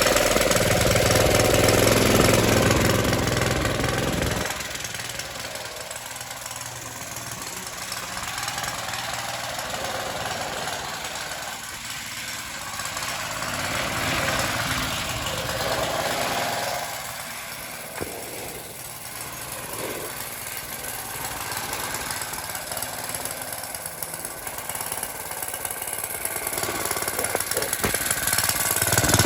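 Go-kart's original small gasoline engine running with no drive belt on its torque converter, so it runs without load. It is loud and full for the first few seconds, drops noticeably quieter about four seconds in, and grows loud again near the end.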